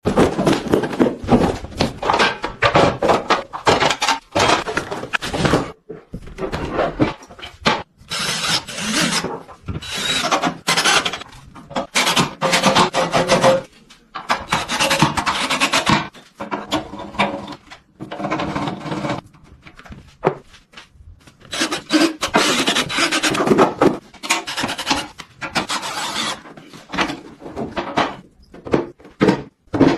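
Sewing machine parts being fitted by hand: irregular bursts of scraping and rubbing with knocks of metal and wood.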